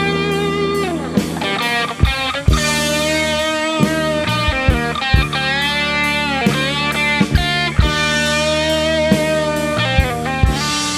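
Live rock band playing slow instrumental music: an electric guitar plays a lead line with bent, wavering notes over sustained bass and keyboard chords, with occasional drum hits.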